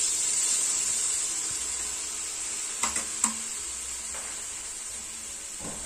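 Malpua batter frying in hot oil in a kadhai: a steady sizzling hiss that slowly eases, with two short clinks about three seconds in.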